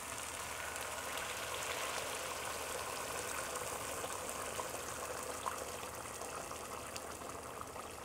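Hot water poured in a steady stream from a glass electric kettle into a stew pot, splashing onto browned meat and filling the pot.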